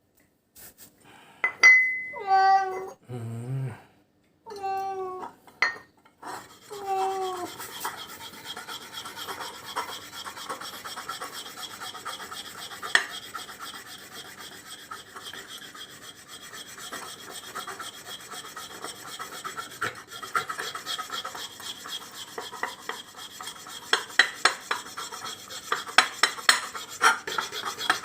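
A domestic cat yowls three times in the first several seconds, drawn-out falling cries from a cat that has been bitten by a venomous animal. A long stretch of rubbing and scraping noise with many quick clicks follows, busier near the end.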